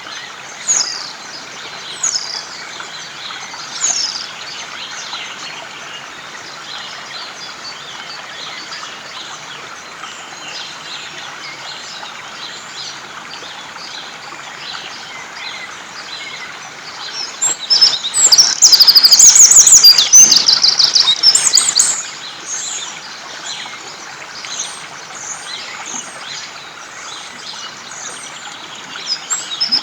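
Wild birds singing and calling over the steady rush of a river. About two-thirds of the way in, one bird sings loud, rapid high trills for a few seconds.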